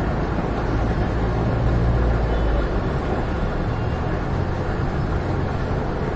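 Steady outdoor background noise: a low rumble under an even hiss, with the rumble heaviest in the first three seconds.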